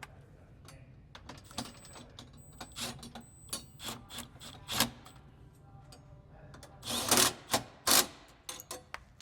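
Bolts being tightened with a 10 mm socket on an extension: runs of ratchet-like clicking, with louder metal knocks about seven to eight seconds in.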